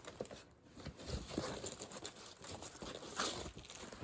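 Irregular crinkling and light clicking of paper envelopes and plastic card holders being handled and moved by hand.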